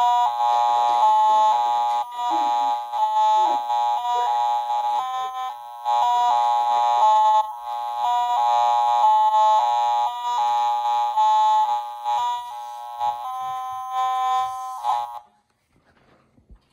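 Toy mini electronic keyboard played with both hands: bright electronic chords and melody notes in a steady rhythm, stopping abruptly about fifteen seconds in.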